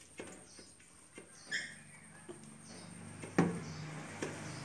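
Light clicks and taps of fingers and hands working rice on steel plates, with a sharper knock on the metal about three and a half seconds in. A short high squeak sounds about a second and a half in.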